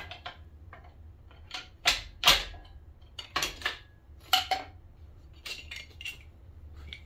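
Loose metal engine parts clinking and clattering as they are handled and set down: main bearing caps and bearing shells being taken off the block. There are several sharp clinks in quick clusters, the loudest about two seconds in.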